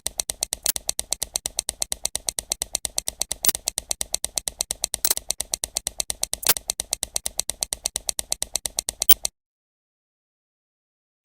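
Rapid clicking of buttons being pressed over and over, about six or seven clicks a second, like frantic jabbing at a microwave's keypad that won't start; it stops abruptly about nine seconds in, leaving dead silence.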